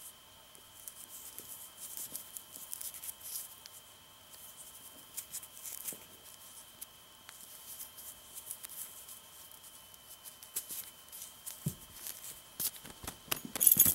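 Twisted nylon rope strands being picked apart by hand into fine floss: soft irregular rustling and small crackling ticks of the fibres, growing denser and louder near the end.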